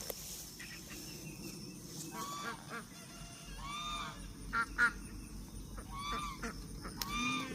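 Welsh Harlequin ducks quacking, a string of short calls about a second apart.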